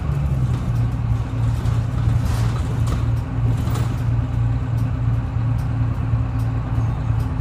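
Detroit Diesel 6V71 two-stroke V6 diesel of a GMC "New Look" transit bus running at a steady speed, its even low drone holding pitch, with faint light ticks and rattles over it.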